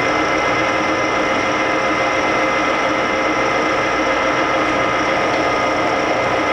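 Lagun FVA-5LA geared-head milling machine running under power feed, with a steady mechanical drone and a few steady whining tones from its gears as the knee is driven.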